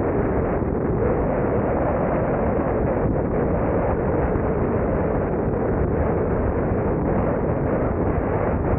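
Steady wind rushing over the microphone of an Insta360 camera on a moving car, mixed with the car's engine and road noise as a continuous low rumble.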